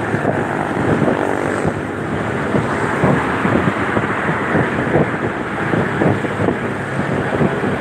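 Wind rushing and buffeting over the microphone of a moving motorcycle, with the motorcycle's engine and road noise running underneath.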